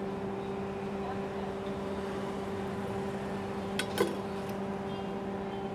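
A steady machine hum holding a low tone and a higher one above it, with two short sharp clicks about four seconds in.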